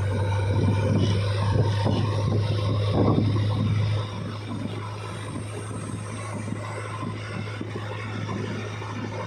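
Diesel engine of heavy machinery running steadily with a low hum. It drops noticeably in level about four seconds in.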